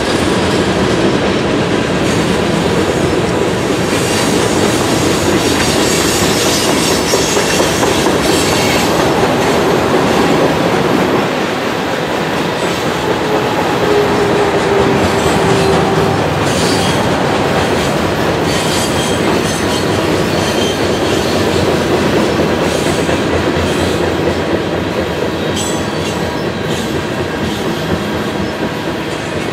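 Freight train of loaded centerbeam lumber flatcars rolling past: a steady rumble and clatter of steel wheels on rail, with a few brief, faint wheel squeals.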